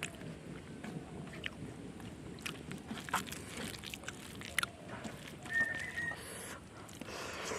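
A person chewing and biting food close to the microphone, with scattered small crunches and wet clicks. About three-quarters of the way through, a brief high whistle-like tone sounds for about half a second.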